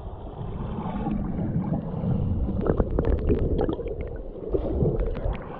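River water churning and gurgling right at the microphone: a dense low rumble with scattered small clicks and splashes.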